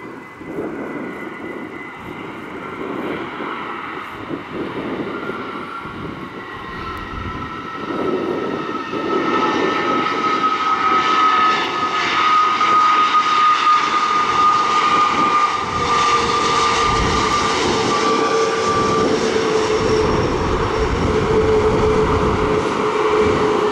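The CFM LEAP-1B jet engines of a Boeing 737 MAX 8 on its landing roll just after touchdown, a steady jet roar that grows louder over the first ten seconds as the airliner comes nearer, then holds. A whine runs over the roar and falls slowly in pitch, and a lower hum joins it about two-thirds of the way through.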